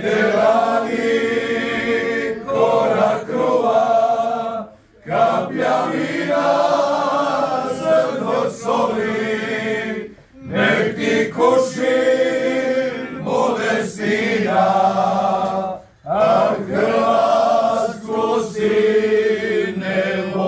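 A group of men singing a Croatian song together without instruments, in several-part harmony. The singing comes in long phrases of about five seconds, each broken by a brief pause for breath.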